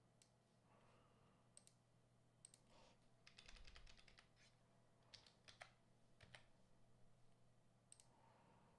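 Faint computer keyboard keystrokes and mouse clicks, scattered, with a quick run of keystrokes about three and a half seconds in, over a low steady hum.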